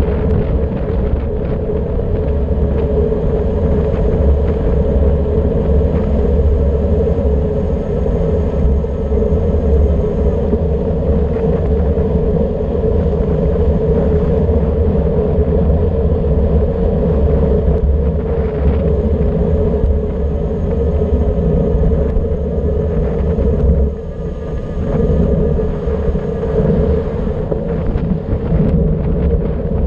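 Wind rushing over an action camera's microphone on a bicycle descending at about 55–60 km/h, a steady rumble mixed with road noise, dipping briefly about three-quarters of the way through.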